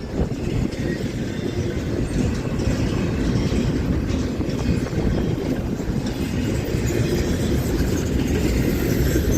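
CSX freight train's cars rolling past, steel wheels making a steady rumble on the rails.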